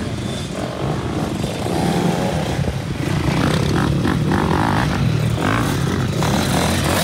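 Several motocross dirt bikes running through ruts, their engines revving up and down. They get louder about two seconds in.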